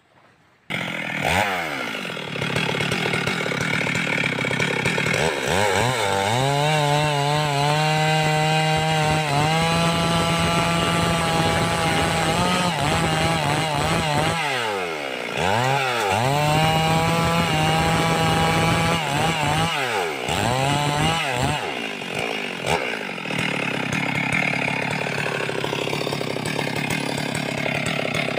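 Two-stroke chainsaw cutting through logs. It comes in abruptly about a second in and runs at high revs, held steady in long stretches, with the revs dropping and climbing again between them.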